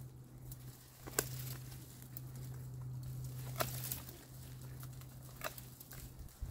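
Hand loppers snipping through dry brush stems: three sharp snips about two seconds apart, with the rustle of dry twigs between them and a steady low hum underneath.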